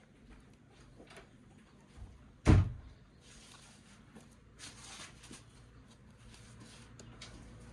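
One loud, short thump about two and a half seconds in, set among faint knocks and rustling.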